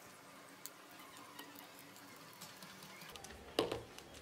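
Small metal clicks and light scrapes of a screwdriver working the screws of a soldering iron's handle. About three and a half seconds in comes a single louder clack.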